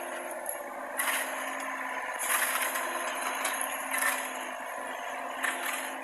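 Mini excavator engine running steadily while building rubble clatters and scrapes in several short bursts as it is moved.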